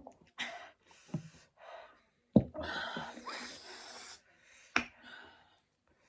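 Noodles being slurped and eaten: a long slurp lasting nearly two seconds, opened by a sharp click, with shorter mouth noises and sniffs around it and another sharp click near the end.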